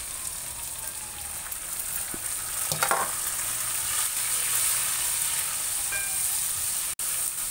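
Onions, garlic and freshly added chopped tomatoes sizzling in hot oil in a nonstick wok, with a wooden spoon scraping through them as they are stirred. The sizzle grows louder about three seconds in, as the stirring begins.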